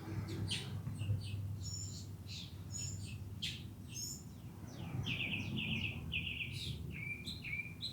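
Wild birds chirping and singing, several short calls overlapping, and from about five seconds in a quick run of repeated short notes, over a low steady background hum.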